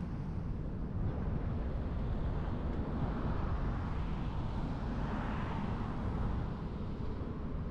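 Road noise of a car driving: a steady rumble of tyres on the road with wind hiss, swelling a little about halfway through.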